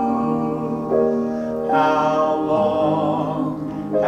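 A man singing a slow gospel song over piano accompaniment, with held notes that change about once a second.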